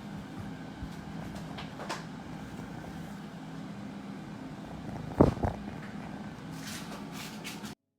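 Kitten purring steadily, close to the microphone, with two sharp knocks about five seconds in and some rustling near the end; the sound cuts off abruptly just before the end.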